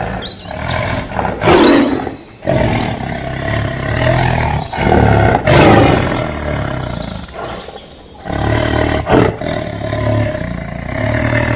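Tiger roaring: a series of loud roars and growls, with a short lull about eight seconds in.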